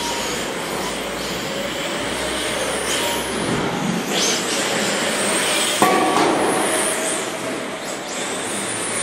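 Radio-controlled race trucks running around a track, their motors whining and rising and falling in pitch as they speed up and slow down. A sharp knock comes about six seconds in.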